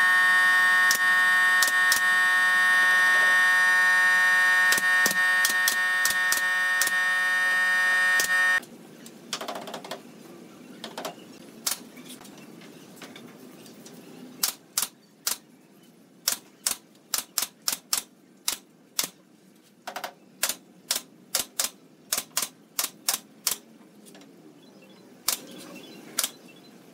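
Pneumatic nail gun firing nails into pallet wood, sharp single shots, many coming one or two a second in the second half. For the first third a loud steady machine whine runs under the shots and cuts off suddenly.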